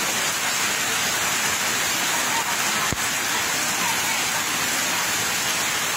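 Rain falling steadily on a wet concrete yard and its puddles, an even hiss of drops.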